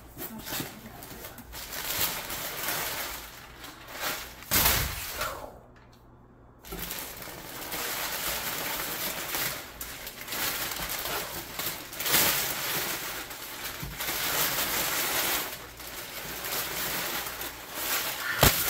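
Cardboard box and its packaging being opened and handled, rustling and crinkling, with a few sharper crackles. There is a short pause a little after five seconds in.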